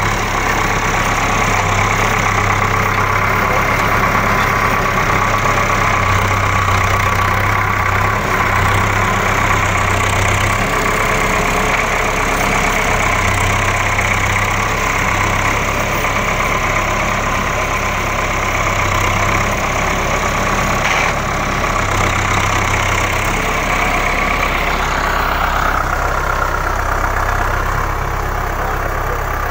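Farm tractor's diesel engine running steadily close by as it works a field with a mounted plough.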